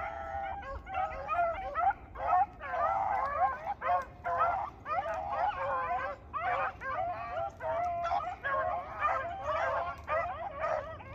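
A pack of rabbit beagles baying in chorus as they run a rabbit, the high, bending bawls of several hounds overlapping almost without a break: the sign of hounds on a rabbit's scent trail.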